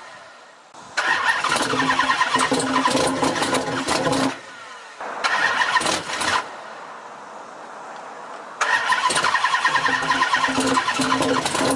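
Car engine cranking on the starter motor without catching, in three tries: a long crank, a short one, then another long one, each a rapid pulsing churn. The engine fails to start.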